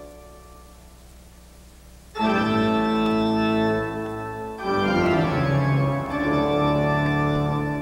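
Pipe organ playing sustained chords. A quiet fading tail is followed about two seconds in by full chords that enter abruptly, change to a new chord a couple of seconds later, and die away near the end.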